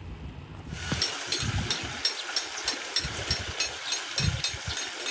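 An engine running steadily, with a regular clack about three times a second over a rushing hiss.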